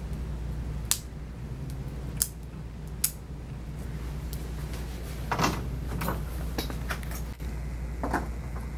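Dog nail clippers snapping through a Maltese puppy's toenails: three sharp clicks in the first three seconds, then softer clicks and rustling from about five seconds in. A low steady hum runs underneath.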